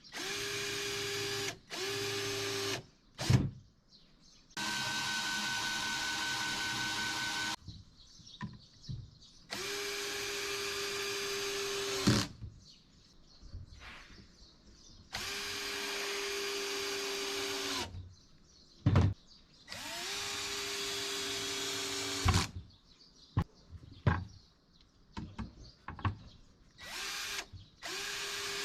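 Electric drill running in repeated bursts of one to three seconds, each starting and stopping abruptly, with short knocks and clicks of handling in between.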